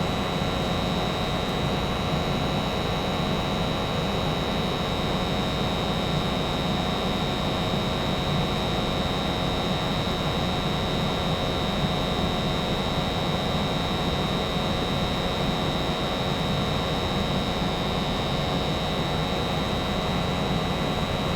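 American Standard 90% gas furnace running steadily with the burner firing and the blower on: a constant fan hum with a thin high whine held over it.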